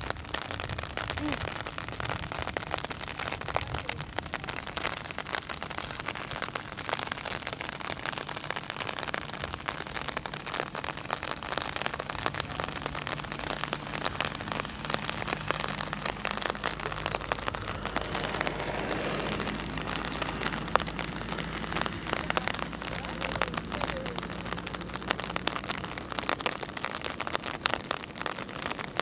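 Rain pattering, a dense, even crackle of drops.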